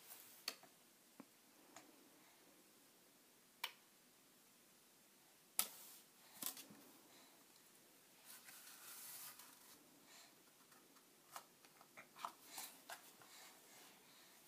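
Near silence in a small room, broken by scattered faint taps and clicks from a crawling baby on carpet and the toys around her, with a short rustle about eight seconds in and a cluster of small taps near the end.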